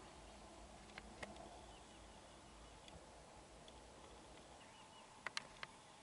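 Near silence: faint outdoor background hiss with a few faint sharp clicks, one about a second in and a quick cluster of three near the end, and faint short high chirps.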